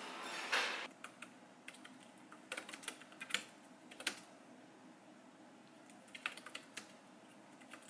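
Light typing on a compact keyboard with round keys: soft key clicks in short, irregular runs with pauses between. A short, louder burst of noise comes just before the typing starts.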